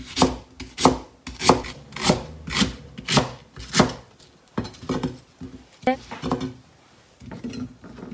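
Kitchen knife slicing a white spring onion diagonally on a cutting board, each stroke knocking on the board about every half second and growing softer and more irregular in the second half.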